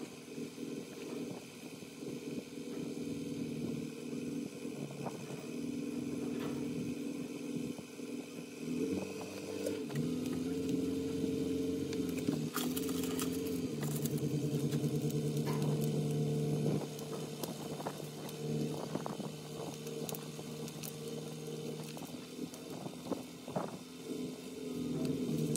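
Diesel engine running, its speed shifting up and down several times, with scattered light clicks and knocks.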